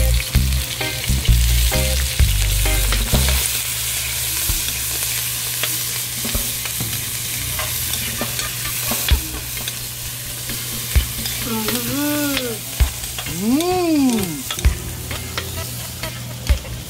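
Chopped onion, garlic and chilies sizzling steadily in hot oil in an aluminium wok, stirred with a metal ladle that knocks and scrapes against the pan now and then.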